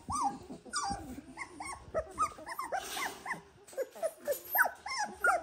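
A litter of 18-day-old Dalmatian puppies crying: many short, high squeaking whimpers that rise and fall, three or four a second and overlapping, with a brief lull partway through. Typical of young puppies unsettled by the stress of being moved.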